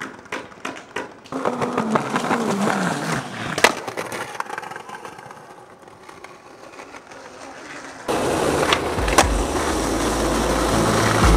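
Skateboard wheels rolling over stone paving slabs, clicking at the joints, with one sharp crack about three and a half seconds in; the rolling then fades away. About eight seconds in it cuts to a louder, rumbling roll on asphalt with a few sharp clicks.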